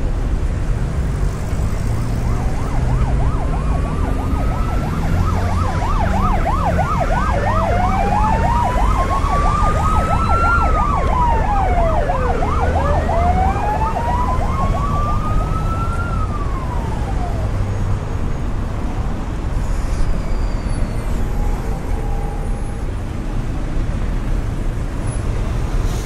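Emergency vehicle siren in city traffic: a fast warbling yelp overlapped by a slow wail that rises and falls several times, fading out about two thirds of the way through. A steady low traffic rumble runs underneath.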